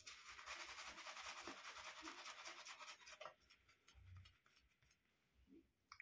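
Shaving brush swirled against shaving soap to build up lather: a faint, fast bristly rubbing for about three seconds that then stops.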